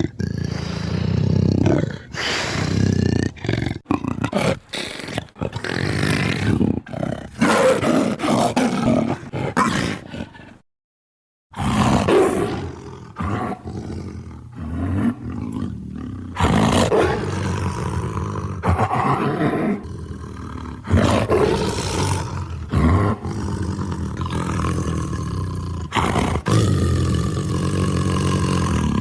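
Puma and leopard calls: a string of separate roars and growls with short gaps between them, broken by about a second of complete silence some eleven seconds in.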